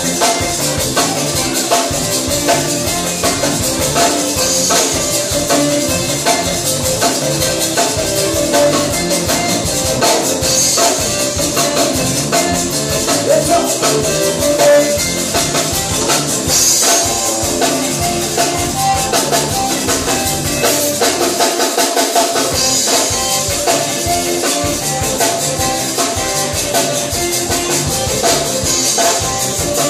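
Live zydeco band playing an up-tempo dance tune: an accordion carries the melody over a fast, steady beat of drums and a scraped rubboard (frottoir), with electric guitar. The bass drops out briefly about two-thirds of the way through.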